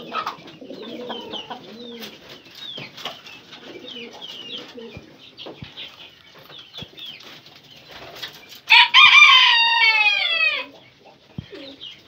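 Domestic pigeons cooing softly, with many short high chirps from small birds, then a rooster crowing loudly once about nine seconds in for about two seconds, its call falling away at the end.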